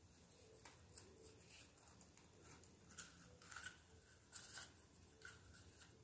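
Faint rustling and soft handling noises of a rolled paper message and satin ribbon being tied, a few brief scratchy rustles standing out in the middle.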